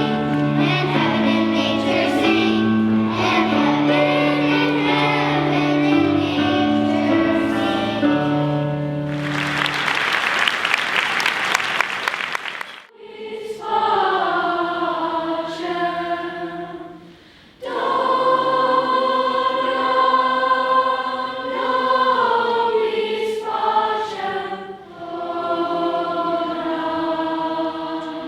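A student choir singing a Christmas piece over low sustained accompaniment. About nine seconds in, it gives way to roughly three seconds of applause. It then cuts abruptly to choral singing in long held chords.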